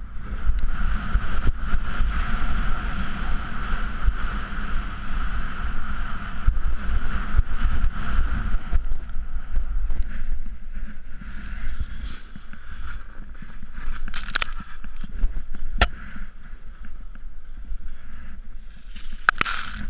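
Wind and snow noise on a GoPro action camera as a snowboard carves through deep powder: a continuous rumble with a steady whistling tone through the first half. Later come a few sharp knocks as the rider goes down into the deep snow.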